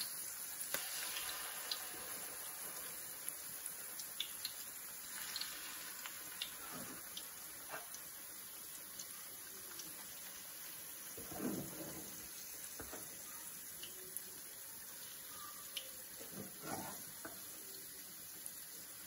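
Akara (bean-paste fritters) deep-frying in hot oil: a steady sizzle with small crackles and pops throughout. There are a few soft knocks, twice louder, once just past the middle and once near the end.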